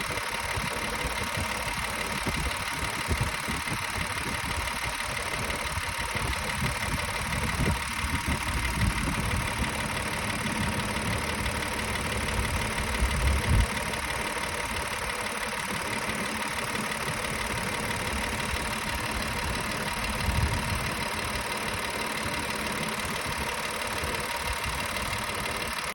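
Audi A6 C7's 2.8-litre CHVA V6 petrol engine idling, with an irregular low knock that comes and goes. A few heavier thumps stand out, the strongest about halfway through.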